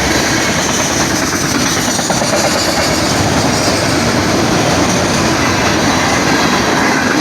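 Norfolk Southern freight train's cars rolling past at close range, a loud, steady rumble of wheels on rails.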